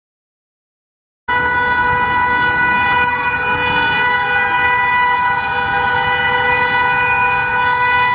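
Silence for just over a second, then a locomotive horn sounds one long, steady blast over the low rumble of the moving train.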